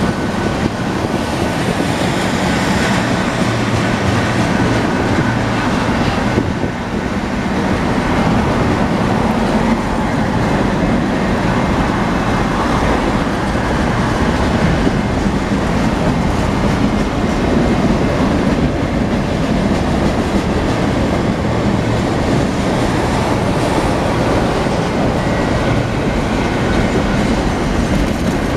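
Freight cars of a Union Pacific mixed freight train rolling steadily past at a grade crossing, steel wheels running on the rails in a loud, continuous rumble.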